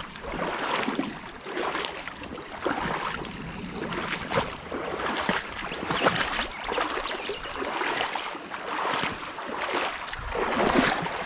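Shallow river rapid rushing, with splashing and sloshing from feet wading through it in uneven surges.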